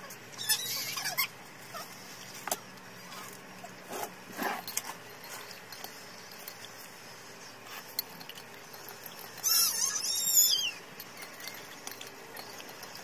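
Animal squeals: a brief high bout about half a second in, then a louder bout of falling squeals about ten seconds in, with a few light clicks between.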